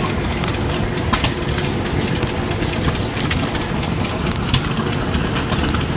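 McCormick International B-250 tractor's four-cylinder diesel engine running steadily, with scattered sharp clicks over the low, even engine sound.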